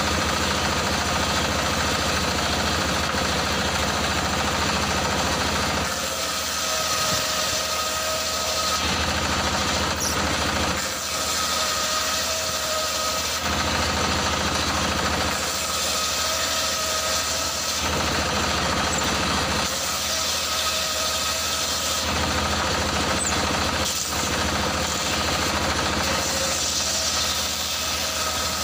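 Stationary diesel engine driving a large circular saw blade as boards are ripped lengthwise. The sound changes in sections about five times, a steady whine rising in with each change.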